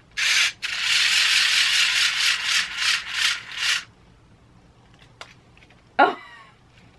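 Battery-powered hair braiding tool running, a rattling whir of its small motor and plastic prongs twisting hair, for about three and a half seconds, with a brief stop just after it starts and a few pulses before it stops. A short vocal sound with falling pitch about six seconds in.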